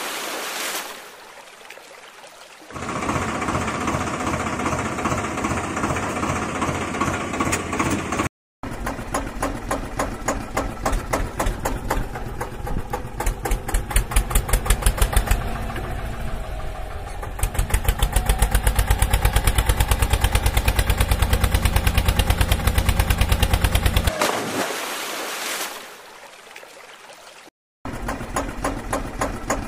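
An engine running with a rapid, even chugging beat. It gets louder and steadier for several seconds in the middle and drops out suddenly twice.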